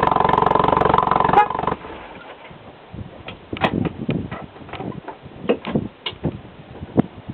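Volkswagen Golf Mk1's engine running through a Simons aftermarket exhaust, then cut off abruptly with a click about a second and a half in. Scattered faint clicks and knocks follow.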